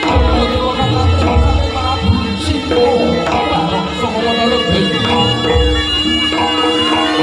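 Jaranan gamelan accompaniment: kendang hand drums beating over steady ringing metallophone and gong tones.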